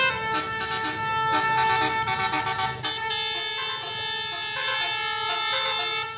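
Telolet basuri multi-tone horn playing a tune: a quick run of stepped horn notes over a couple of long held tones.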